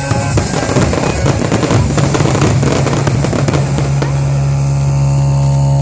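A fireworks barrage with dense crackling and bursting over loud music. About four seconds in, the crackle dies away and a long held musical chord remains.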